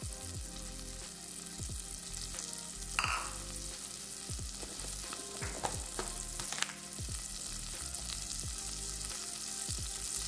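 Grated onion frying in melted butter in a saucepan: a steady sizzle with frequent small crackling pops, a louder pop about 3 s in and another near 6.5 s.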